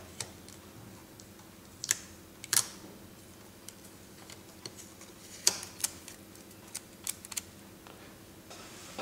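Clear cellophane tape being lifted, shifted and pressed down by fingers to realign a strain gauge: scattered sharp clicks and crackles at irregular intervals, the loudest about two and a half and five and a half seconds in.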